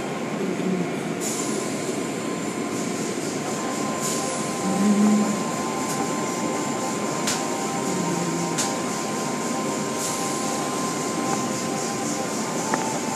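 Tunnel car wash machinery running: a steady mechanical drone with a constant whine, water spray hissing as the cloth brushes work, and a brief louder hum about five seconds in. A couple of sharp clicks come past the middle.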